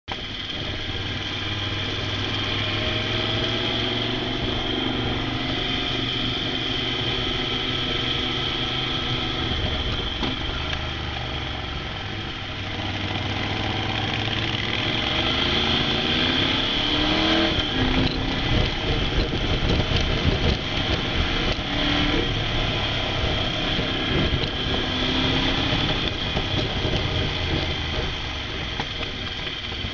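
Motorcycle engine running under way, rising and falling in pitch with throttle and gear changes through the bends, over a steady rushing noise of wind and road.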